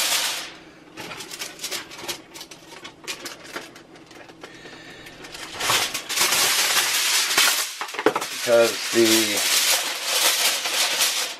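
Reynolds Wrap aluminum foil crinkling as it is drawn over a baking pan and crimped around the rim. It is soft and crackly at first and much louder and denser from about halfway through.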